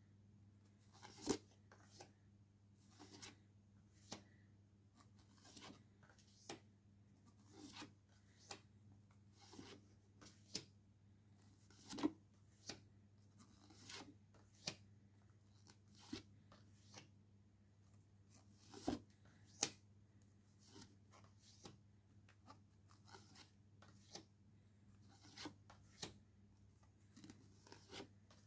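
Stiff photo postcards handled one at a time and laid down on a pile: a short papery rustle or tap every second or two, over a faint steady low hum.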